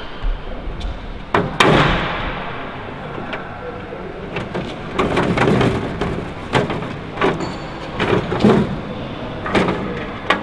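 Irregular knocks and clanks of hand tools against the Lancaster's metal airframe, with a couple of sharp hits about a second and a half in and a busier run of knocks in the second half.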